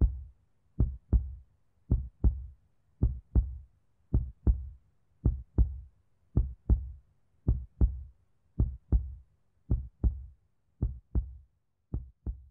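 Heartbeat sound effect: a deep lub-dub double thump repeating steadily about once a second.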